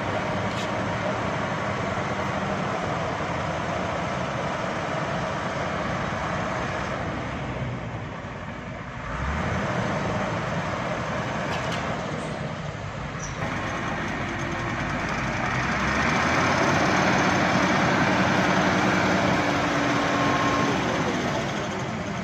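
Heavy vehicle engines running with steady road noise, growing louder from about sixteen seconds in.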